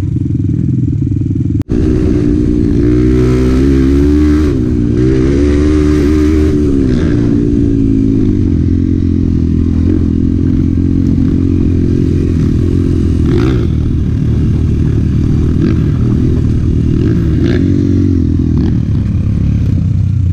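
Honda Bros 125 trail bike's single-cylinder four-stroke engine running under way, revving up and down over the first several seconds, then holding a steady pitch. A couple of short knocks from the bike over the rough trail later on.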